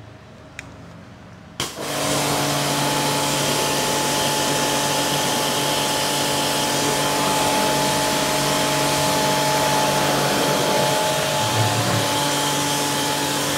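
Hiroma pressure washer kicking in about one and a half seconds in, then running steadily: a motor-and-pump hum under the hiss of its water jet spraying the motorcycle.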